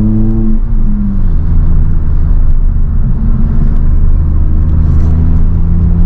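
Honda Civic FN2 Type R's 2.0-litre four-cylinder engine and road noise heard from inside the cabin while driving. The engine note rises and drops away about a second in, then a steady low rumble carries on, and the engine note returns near the end.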